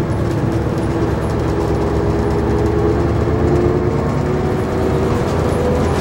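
Route bus under way, heard from inside the cabin: a steady engine and road rumble with a faint whine that rises slightly in pitch.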